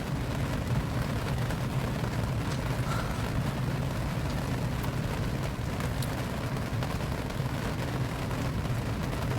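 Steady rain: a continuous rushing noise over a constant low rumble, with a few faint ticks of drops.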